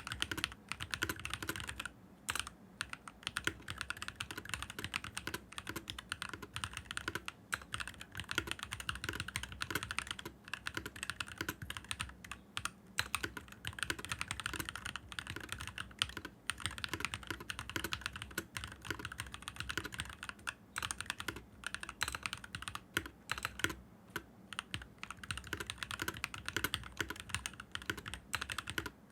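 Steady, fast typing on a stock, unmodified NovelKeys NK65 mechanical keyboard, a continuous stream of keystroke clacks with no real pauses.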